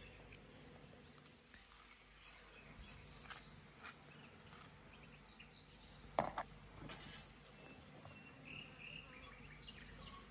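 Quiet garden background with faint insects and birds, broken by a few soft clicks and taps of food being handled on a metal tray; the loudest comes about six seconds in.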